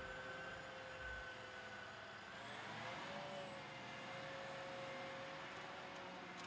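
John Deere self-propelled forage harvester running while chopping grass into a tractor-drawn silage trailer: a steady machine drone with a high whine held over it, the whine lifting slightly in pitch about two and a half seconds in.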